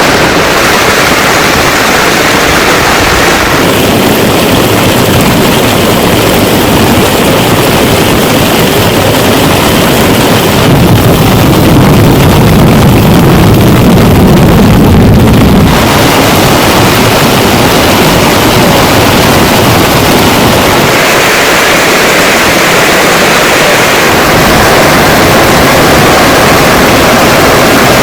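Heavy monsoon rain pouring down, a loud, even hiss that shifts abruptly in tone several times.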